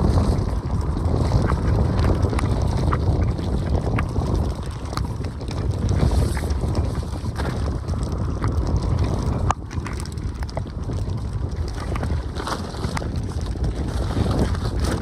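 Heavy rain falling with wind buffeting the microphone: a steady low rush, with scattered sharp ticks of drops striking close by.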